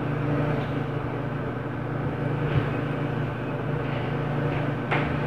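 Footsteps stomping on the floor of the apartment above, heard through the ceiling as two sharper knocks about two and a half seconds apart, over a steady low hum.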